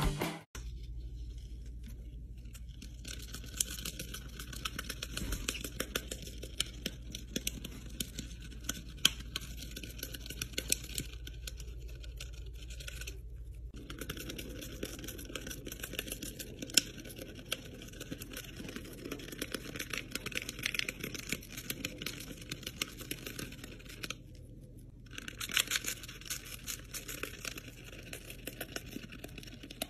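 Lovebird tearing and nibbling at the paper edge of a drink-mix sachet: an uneven run of small crinkles, rips and beak clicks on the paper.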